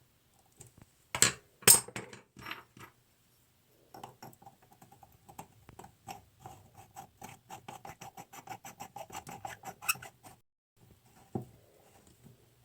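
Small faucet parts being handled and fastened back onto a new faucet cartridge by hand. There are two sharp clacks, then a long run of quick light ticks lasting several seconds, and a few scattered clicks near the end.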